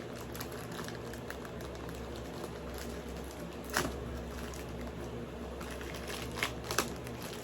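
Steady low room hum with a few short sharp clicks from handling objects, one about four seconds in and two close together near the end.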